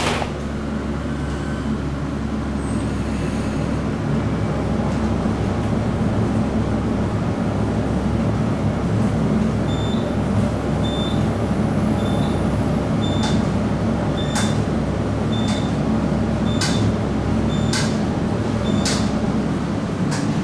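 Passenger elevator cab in motion: a steady low rumble and hum of the car travelling in the shaft. From about halfway through, short high beeps come about once a second, with a few sharp clicks near the end.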